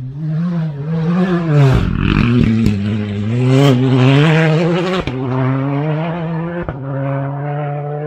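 A rally car's engine revving hard on a gravel stage, its pitch rising and falling with the throttle and gear changes. There is a rush of noise about two seconds in, and two sharp cracks, one about five seconds in and one near seven. Near the end the engine settles into a steadier note that climbs slowly.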